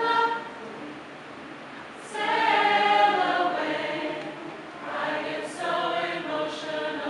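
An a cappella chorus singing held vocal chords without instruments, in separate phrases: one ends just after the start, then after a pause of over a second come a longer phrase and two shorter ones.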